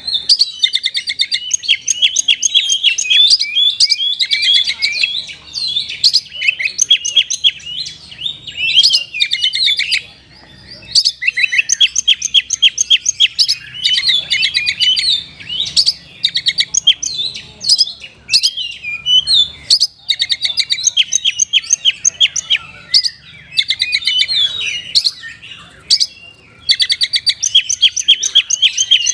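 Oriental magpie-robin (kacer) singing a loud, fast song of rapid chirps and trills in long runs with short pauses, mixing in mimicked phrases of another songbird.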